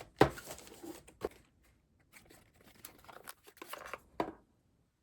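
Headset packaging being handled and opened: rustling, crinkling and tearing with a few sharp knocks, stopping abruptly about four and a half seconds in.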